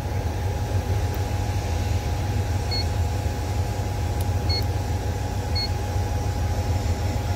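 Crawler crane's diesel engine idling steadily at about 800 rpm, heard from inside the cab as a low rumble with a steady hum. Over it come three short electronic beeps from the cab's display monitor as its buttons are pressed, a few seconds in, the last two about a second apart.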